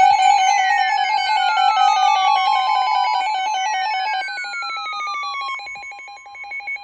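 Electronic emergency-alert tone: steady tones pulsing rapidly on and off, with two whistle-like sweeps falling in pitch one after the other. The sound fades near the end.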